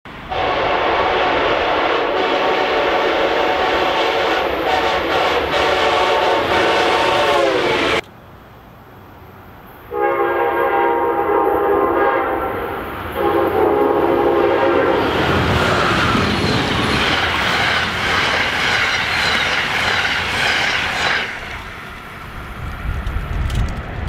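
Passenger train's multi-chime air horn sounding a long blast that drops in pitch at its end and cuts off suddenly. After a short lull come two more blasts with a brief break between them, then the rumble and clatter of a train passing at speed, fading away.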